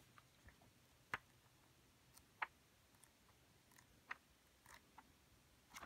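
A few faint, sharp ticks over near silence as thin Bible-paper pages are turned by hand. The clearest come about one, two and a half and four seconds in.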